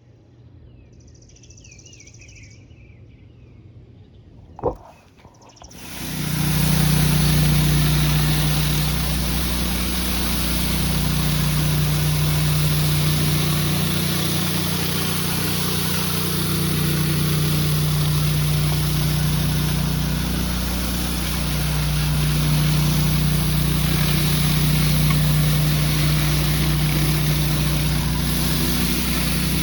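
A few quiet seconds with a single click, then an engine running steadily at a constant speed from about six seconds in.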